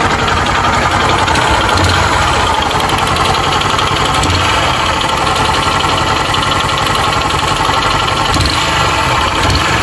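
150 cc motorcycle's single-cylinder four-stroke engine running steadily with a mechanical noise from the engine. The mechanic takes it for a worn cylinder kit (piston and rings), with a possibility of play in the connecting rod.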